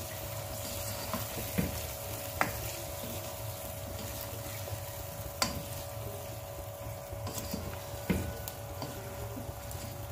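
Saucy chicken and vegetables sizzling in a non-stick pan while a black spatula stirs them, with a few sharp knocks of the spatula against the pan, the clearest about two seconds in, midway and near the end. A steady hum runs underneath.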